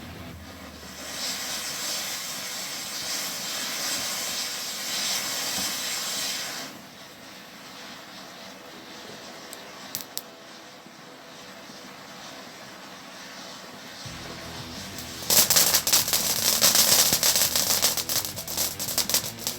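Garden firework fountain hissing for about six seconds, then dying down. Near the end another firework bursts into loud, dense crackling that keeps going.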